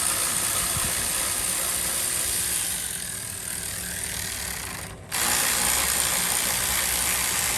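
Handheld power gun running steadily as it spins a bolt, cutting out briefly about five seconds in and then starting again.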